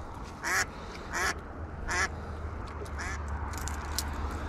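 A duck quacking in a series of short calls, about four in all, spaced half a second to a second apart and ending about three seconds in.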